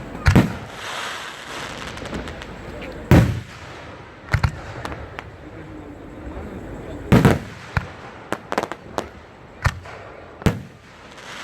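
Aerial fireworks bursting: loud booms every few seconds, with a quick run of smaller pops about eight to nine seconds in.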